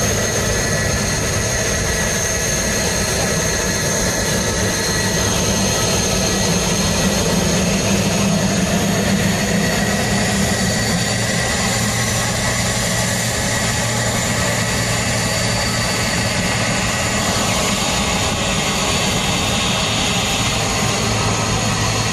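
Jet aircraft engines running, a steady drone with a thin high whine and a low hum, holding level without building or fading.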